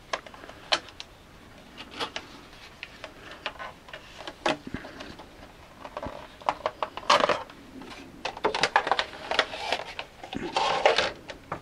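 Clear moulded plastic packaging tray crackling and clicking as a circuit board is pried out of its tight fit: scattered sharp clicks and short crackles, busiest in the second half.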